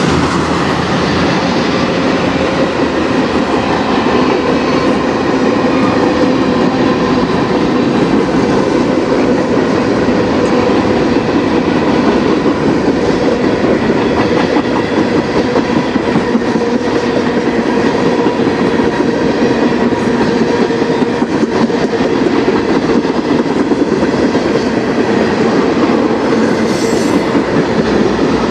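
CN manifest freight train rolling steadily past, its wheels running on the rails, with steady ringing tones over the noise.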